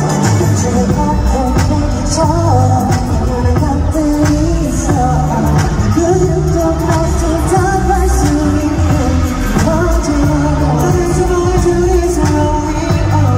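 Live K-pop performance: male voices singing over a pop backing track with a steady bass line.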